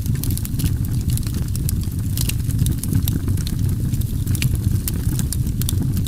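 Wood campfire crackling, with many irregular sharp pops and snaps over a steady low rumble.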